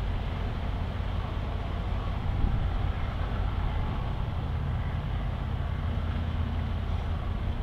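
Passenger ferry M/S Eckerö's engines running with a steady low hum, under an even hiss of wind and harbour noise.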